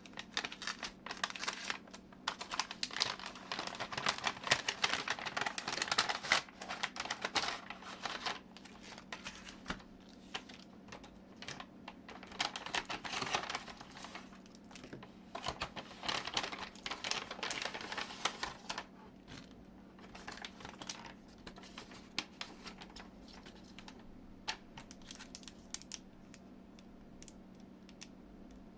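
Packaging being handled and unwrapped: paper and plastic crinkling with many small clicks and taps. It is busy for about the first two-thirds, then thins to scattered clicks.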